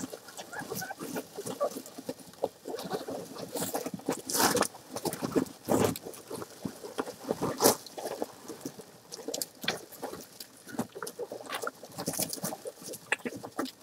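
Straw bedding rustling and crackling in irregular snaps as a mother American Hairless Terrier and her two-week-old puppies shift about in the nest, with a few short, high puppy squeaks about a second in.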